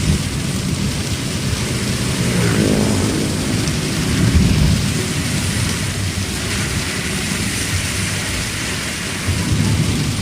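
Heavy rain pelting a car's roof and windscreen, heard from inside the cabin, over the steady low rumble of the car driving.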